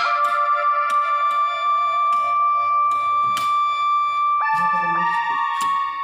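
Background music: sustained keyboard chords held steadily, moving to a new chord about four and a half seconds in, with a few faint clicks.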